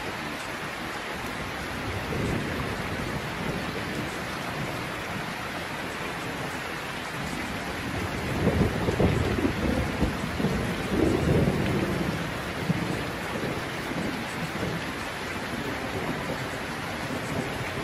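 Steady rain with thunder rumbling, the rumble swelling louder about halfway through.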